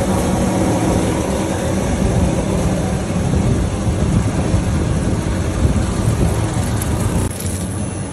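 Winery grape-processing machinery running steadily: a loud mechanical rumble with a steady hum. The deepest rumble drops away near the end.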